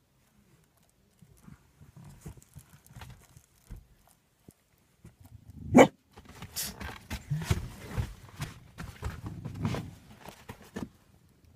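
Polish Lowland Sheepdog in a car's back seat, giving low grumbles at first, then one sharp bark about six seconds in, followed by a run of quieter low woofs and huffs.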